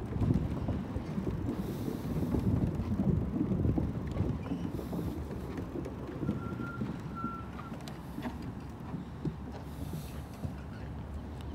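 Wind buffeting the microphone during a bicycle ride, a gusty low rumble that is strongest in the first few seconds and then eases. Two short faint beeps sound about six and seven seconds in.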